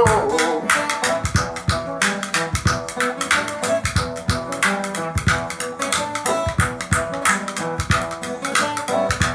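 Music: plucked guitar over a steady drum beat.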